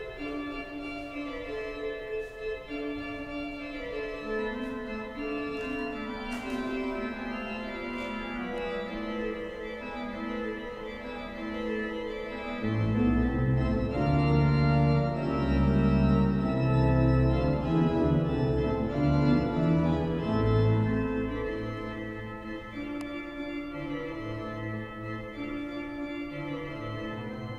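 Organ music: slow, sustained chords changing step by step, with deep bass notes coming in about halfway through and making it louder.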